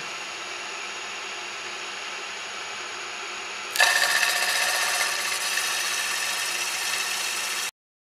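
Vertical milling machine running with a 3/4-inch cutter in the collet, a steady motor hum. About four seconds in, the cutter bites into the aluminium plate and the sound jumps louder and brighter as it cuts the slot, then cuts off suddenly near the end.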